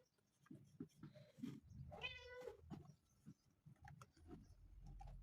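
A house cat meowing once, a short call of under a second about two seconds in, with faint soft knocks around it.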